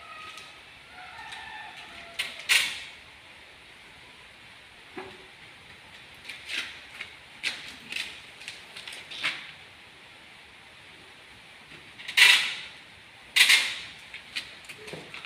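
Short hissing bursts from an aerosol spray can sprayed at an aluminium sliding window frame, a dozen or so over the stretch, the two loudest near the end, with light knocks of the frame being handled.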